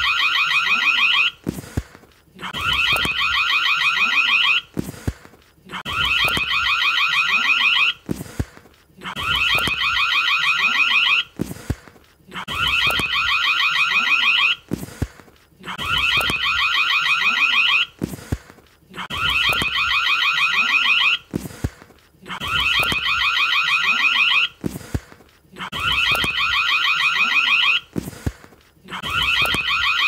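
Indoor doorbell ringing over and over: a rapid trilling ring lasting about two seconds, repeated every three seconds or so, with short clicks in the gaps between rings.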